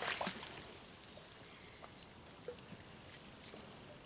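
Faint outdoor lakeside ambience, with small birds calling in a quick run of short, high chirps about two to three seconds in. A brief rush of noise comes right at the start.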